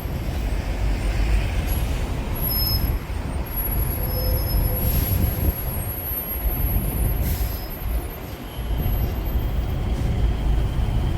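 Steady low rumble of vehicle noise, with two short hisses about five seconds in and again about two seconds later.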